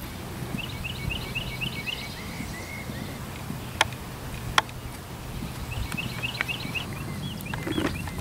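Trakehner mare's hooves thudding softly on grass at a trot, with a songbird singing quick repeated chirping phrases near the start and again near the end. Two sharp clicks close together midway are the loudest sounds.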